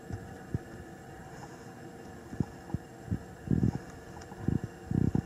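Irregular low, muffled thumps buffeting the microphone over a steady background hiss, the loudest clusters a little past the middle and near the end.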